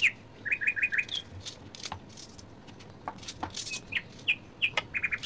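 A small bird chirping, each time one downward chirp followed by a quick run of four short chirps, twice. Between the chirps, a kitchen knife makes short crisp cuts through a red onion.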